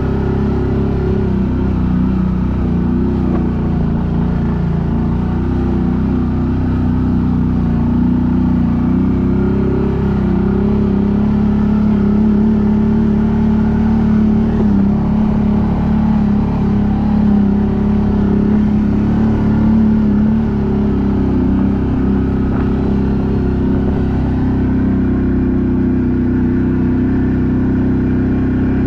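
ATV engine running steadily while riding uphill, its pitch rising and falling a little with the throttle.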